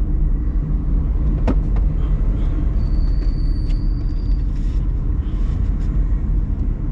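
Steady low rumble of a car driving along at road speed: engine and tyre noise, with a brief click about a second and a half in.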